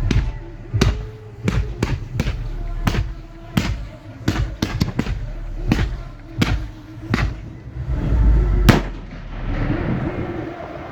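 Fireworks display shells bursting close by, heard from the firing site: a run of sharp bangs roughly every half second over a low rumble, the last and loudest bang near the end, after which the bursts stop.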